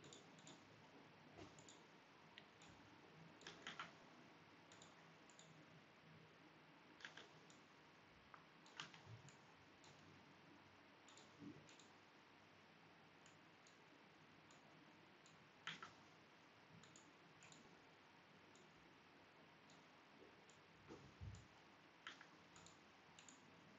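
Near silence broken by faint computer mouse clicks at irregular intervals.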